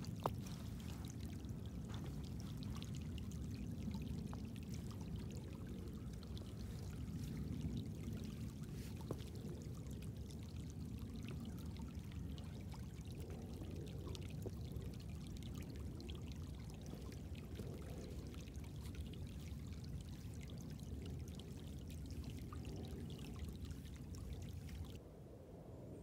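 Small woodland creek running steadily, a low, even rush of water, which drops to a quieter hush about a second before the end.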